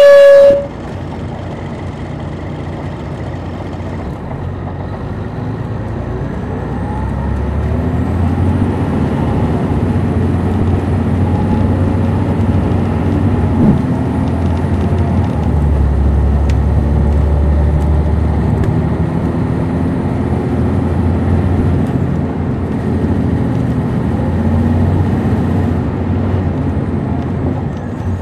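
Heard from inside the cabin, a 2002 MCI D4000 coach's Detroit Diesel Series 60 engine pulls under way through its Allison automatic transmission. The engine grows louder from about four to eight seconds in, runs steadily with a couple of swells, and eases off near the end. A short, loud tone sounds right at the start.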